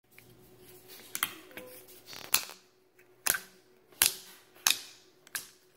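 Clear glitter slime being pressed and squished by fingers in a plastic tray, giving about seven sharp pops and clicks, roughly one a second, with quieter squishing between.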